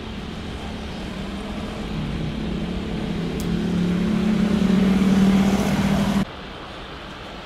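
A Boeing 777's twin jet engines at taxi power as the airliner rolls past: a steady drone with a low hum that grows louder, then cuts off abruptly about six seconds in.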